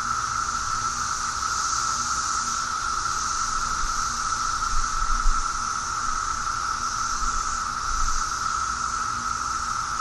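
Dense chorus of Brood X periodical cicadas: a steady, high drone held at one pitch, with a hissier layer above it that swells and fades every second or two. A few low bumps about halfway through.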